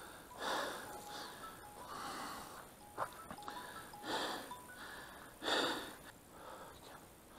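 A shot wild boar lying on its side, breathing in faint wheezing gasps about every one and a half to two seconds.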